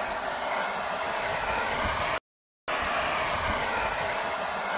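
A model jet engine running with a steady rushing whine and hiss. The sound cuts out completely for about half a second midway, then resumes unchanged.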